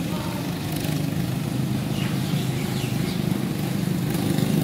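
A motor engine running steadily nearby, a low drone that grows slightly louder toward the end.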